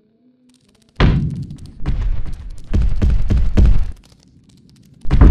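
Heavy, booming stomps of a foot on the kitchen floor as heard from a cockroach's level: about five deep thuds in quick succession starting a second in, a pause, then another near the end.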